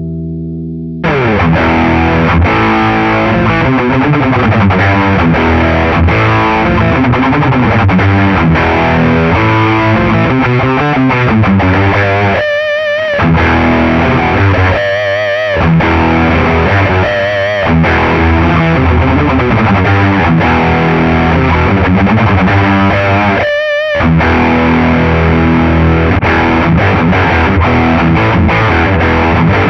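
Ibanez RG 350MZ electric guitar played loud through distortion: riffs and chords, with a few held notes wavering in vibrato. A ringing chord gives way about a second in to the distorted playing.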